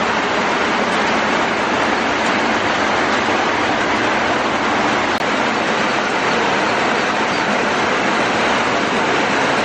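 Steady, unbroken hiss of heavy rain.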